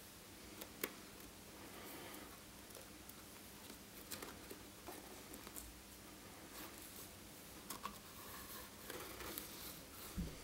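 Faint handling noise from fingers pressing and rubbing a thin gasket ring into place around a speaker cabinet's driver cutout: scattered small clicks and rustles, with one sharp click a little under a second in.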